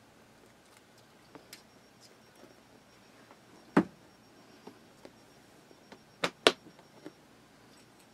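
Clear plastic enclosure lid being lowered and pressed shut, giving scattered sharp plastic clicks and snaps. The loudest comes about four seconds in, with a close pair of loud snaps a little past six seconds.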